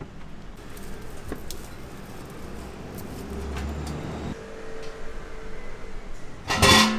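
Low rumble of a passing motor vehicle that swells and then cuts off a little past halfway. Near the end comes a single loud clank of cookware being handled at the ramen stall.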